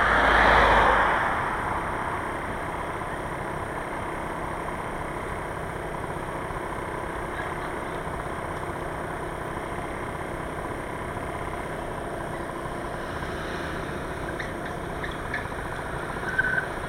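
A car passes, its engine and tyre noise swelling to a peak about half a second in and fading within a couple of seconds. Steady engine and street noise follows, with a few short chirps near the end.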